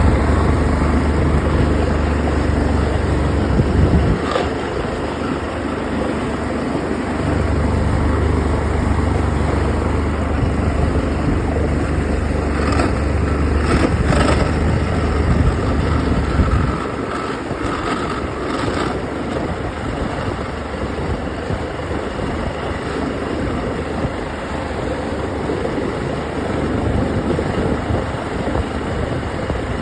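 Yamaha OX66 two-stroke outboard motor running with a weird grinding noise of unknown cause; compression is good and the prop is not slipping, and new spark plugs only cured it briefly. The low rumble drops away and returns a few times, with a few short clicks.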